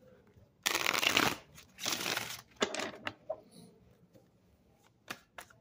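An Ethereal Visions tarot deck being riffle-shuffled: two rapid fluttering riffles of about half a second each, followed by a few light clicks of the cards.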